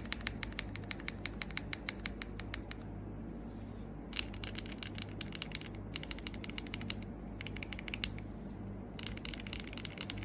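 Outemu mechanical keyboard switches pressed rapidly, like fast typing, in four runs of quick clicks with short pauses between them, over a steady low hum.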